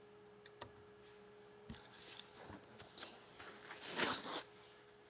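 Rustling and scraping of a cardboard shipping box and its foam packing insert being handled and lifted out. It starts about two seconds in, comes in irregular bursts and is loudest near the end.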